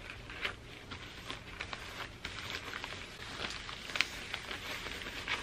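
Faint rustling and crinkling of a pink plastic mailer envelope handled with gloved hands, with scattered small clicks and taps and a sharper tick about four seconds in.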